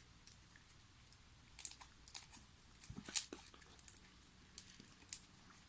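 Slime being squeezed and worked in the hands, making an irregular run of small wet clicks and pops that start about a second and a half in.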